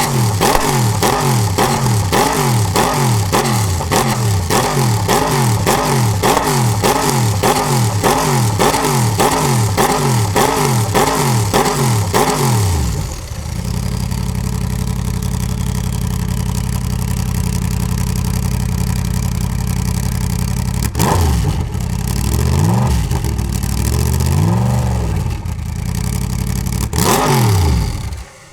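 1990 Mercedes-Sauber C11 Group C racer's twin-turbo V8 being warmed up: for the first dozen seconds it is blipped in quick succession, about two revs a second. It then settles to a steady idle with a few more single revs, and is switched off just before the end.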